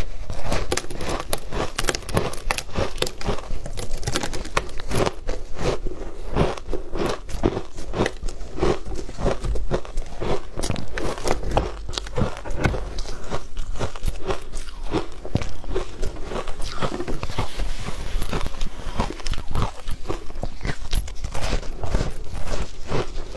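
A person biting into and chewing a block of frozen shaved ice: a dense, continuous run of crisp crunches and crackles.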